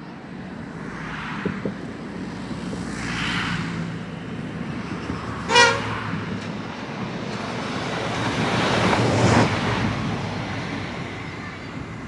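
NSWGR 620/720 class diesel railcar giving one short horn toot about halfway through as it approaches. Its engine and wheel rumble then build to a peak as it passes directly underneath, and ease off near the end.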